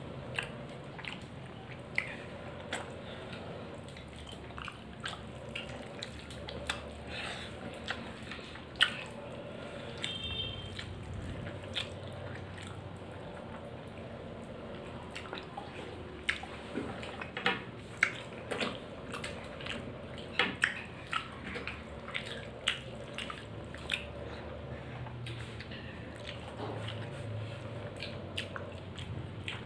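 A person chewing a mouthful of rice and dal with wet, irregular clicks and lip smacks, mixed with the soft sound of fingers working food on the plate.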